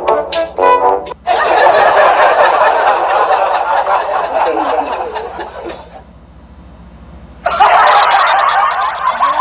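A few short brass notes end about a second in. Then comes loud laughter, which fades out around six seconds in and breaks out again about a second and a half later.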